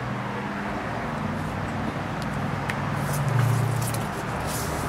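A steady low engine-like hum, swelling a little about three and a half seconds in, with a few light clicks as an electrical power cord is handled.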